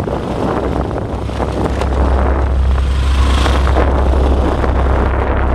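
Microphone rumble and handling noise from a handheld camera carried through undergrowth, with rustling and crackling; the low rumble gets louder about two seconds in.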